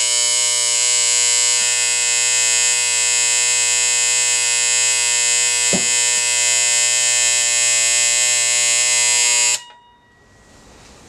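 GraLab darkroom timer's end-of-time alarm buzzer sounding with a loud, steady electric buzz, which means the timer has run down to zero. There is one brief click about halfway through, and the buzz cuts off suddenly near the end.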